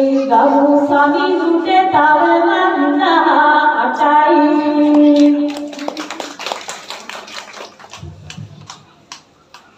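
A woman singing a Sinhala verse (kavi) unaccompanied into a microphone, in long held notes, until about five seconds in; then a few seconds of clapping that thins out and fades.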